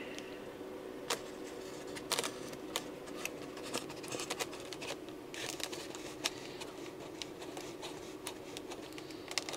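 Scattered small clicks and short scrapes of hands handling the foam RC plane's tail and its plastic fittings, over a faint steady hum. Near the end a hex screwdriver is brought to a tail screw.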